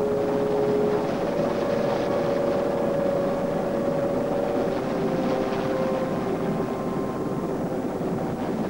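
RAF Westland Sea King search-and-rescue helicopter hovering close overhead: a steady rush of turbine and rotor noise.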